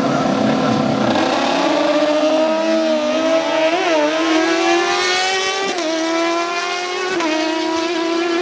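Two inline-four superbike engines, a BMW S1000RR and a Suzuki GSX-R 1000, accelerating hard down a drag strip at high revs. The engine note keeps climbing and drops sharply at upshifts about four, six and seven seconds in.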